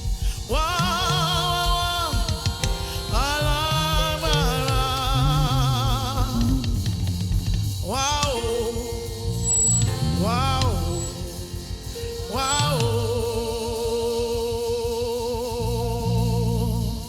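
Live gospel worship band music: a bass line and drum kit under a lead melody of long held notes with wide vibrato, each phrase sliding up into its note. The music falls away right at the end.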